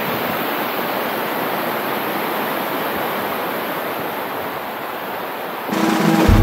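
Steady rushing of a waterfall pouring over rock ledges. Background music comes in just before the end.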